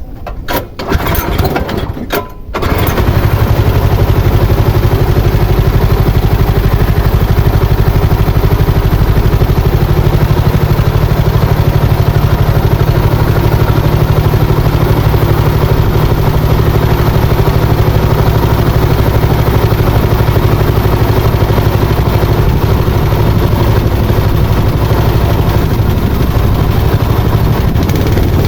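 Small Robin engine of a motorised river sampan starting up about two and a half seconds in, then running steadily at a constant speed.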